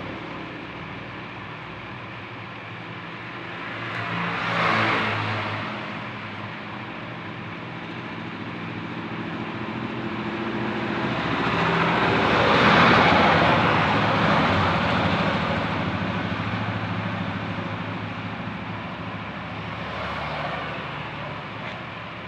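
Road traffic: vehicles passing by. A short swell comes about four seconds in, a longer louder one peaks near the middle, and a smaller one comes near the end, all over a steady low engine hum.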